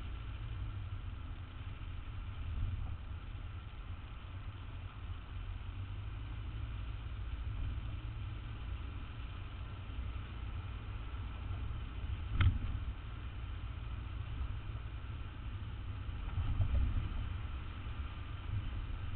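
Steady low rumble of city street traffic. A single sharp knock stands out about twelve seconds in.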